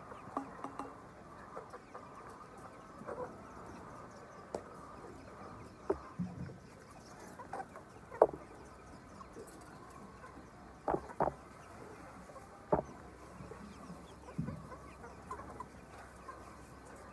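A flock of poultry-farm chickens clucking: short scattered calls over a steady background murmur of the flock, the loudest call about eight seconds in.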